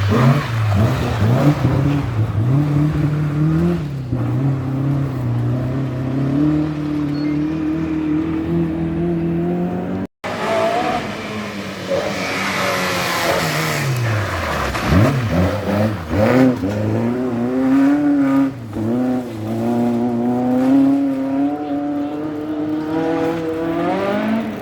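Rally car engines revving hard. One car accelerates with its engine pitch slowly rising. After an abrupt cut about ten seconds in, another car revs through gear changes, its pitch dropping and climbing again as it goes past.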